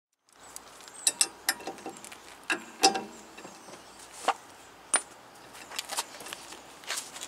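A metal hand tool knocking and scraping against the rusty hub of a car's rear brake rotor. It makes irregular sharp metallic clicks, some with a short ring, about a dozen in all.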